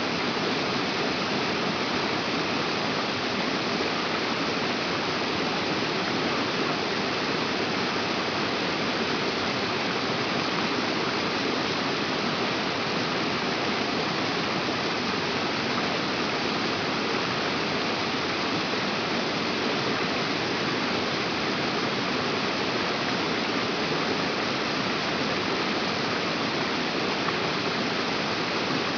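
Steady rushing of running water, even and unchanging throughout.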